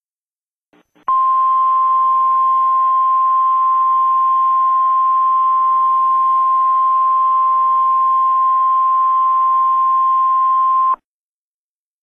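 Emergency Alert System attention tone: one steady, unbroken high tone held for about ten seconds over a hiss of radio static. It starts abruptly about a second in and cuts off sharply near the end.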